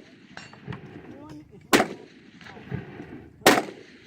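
Two gunshots from an integrally suppressed 10mm carbine, about a second and three-quarters apart, each a sharp report with a short ringing tail.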